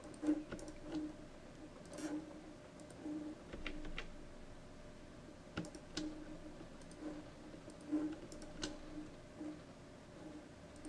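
Faint, irregular clicking of a computer mouse, a few sharper clicks among softer ones, from mouse buttons pressed to pick points and menu items.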